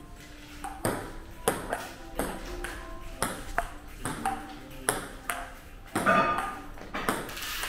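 Table tennis ball clicking off rubber-faced paddles and bouncing on the table in a rally, sharp short pocks about two a second.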